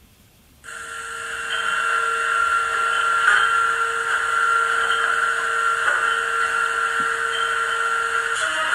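Howes DCC sound decoder in a Bachmann OO-gauge class 47 model locomotive playing its recorded class 47 diesel engine sound through the model's speaker. The sound cuts in suddenly about a second in, builds over a second or so, then holds as a steady hum with a high whine.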